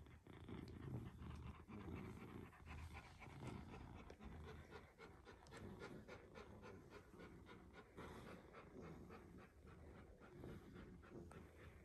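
Alaskan malamute panting softly in a quick, even rhythm.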